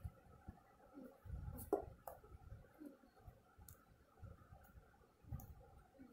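Quiet handling sounds of a plastic rat-tail comb and hands working through a mannequin head's hair: irregular low bumps with a few sharp clicks, the loudest nearly two seconds in.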